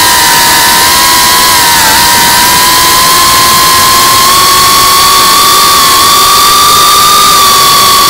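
Geprc Cinelog35 FPV quadcopter's brushless motors and propellers whining at a steady, high pitch that creeps slowly upward as the throttle rises, over a steady rush of air noise.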